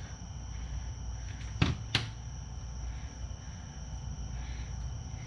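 Two sharp metal clicks about a third of a second apart, about one and a half seconds in, from hand tools working the cotter pin into the ball joint's castle nut.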